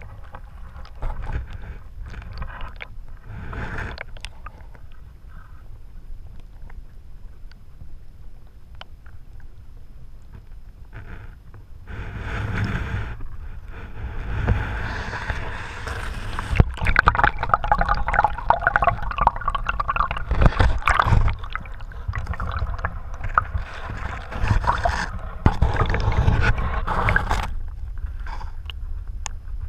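Sulphur spring water bubbling and rushing past an underwater camera's housing, muffled, with a low rumble and occasional knocks and scrapes. It grows louder about twelve seconds in.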